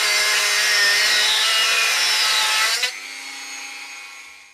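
Rotary tool with a cut-off disc grinding through the ends of steel bolts, a loud high whine with grinding hiss. About three seconds in, the disc comes off the metal and the sound drops to a quieter whine that fades out near the end.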